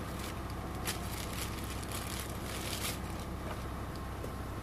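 Clear plastic bag crinkling as a new engine oil pump is unwrapped by hand, a few short crinkles over a steady low hum.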